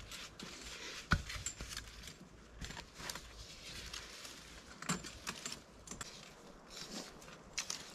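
Dirt being scraped and pushed back into a hole: irregular scuffs and scrapes, with one sharp thump about a second in.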